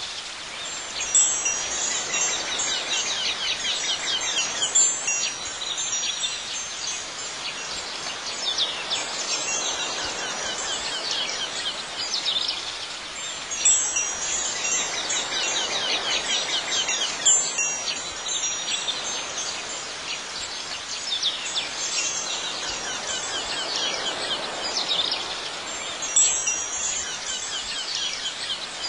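Wind chimes tinkling steadily, in an ambient sound bed whose louder strikes come back in the same pattern about every twelve and a half seconds.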